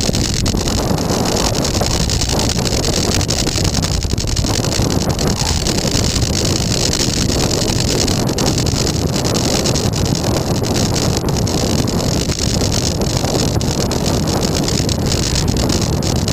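Wind rushing over the microphone of a camera riding along on a moving bicycle, a steady loud rumble and hiss.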